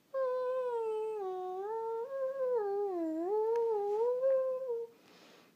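A long howling voice, one unbroken tone that wavers slowly up and down in pitch for nearly five seconds, then stops.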